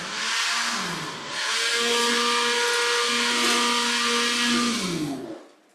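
Small electric food chopper, switched on by pressing down its lid, chopping red chilies, chili padi and garlic. The motor eases off briefly about a second in, runs again for several seconds, then winds down in pitch and stops near the end.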